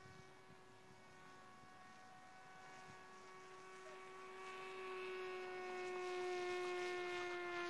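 Electric motor and propeller of a Bixler 2 RC model plane in flight: a steady buzzing tone that grows louder over the second half as the plane passes close, its pitch sliding slowly lower.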